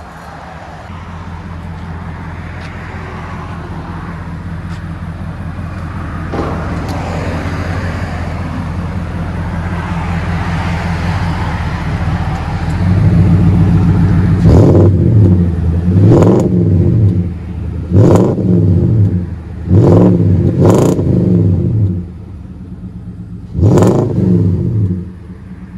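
2018 Nissan Titan's 5.6-litre V8 through a factory true-dual exhaust with stock catalytic converters and a 14-inch Magnaflow muffler, heard at the tailpipe. It idles steadily, then is blipped about six times in quick revs that each rise and fall back, and settles to idle near the end.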